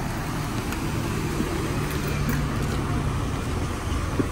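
Steady low vehicle rumble with a hum, and a short knock near the end.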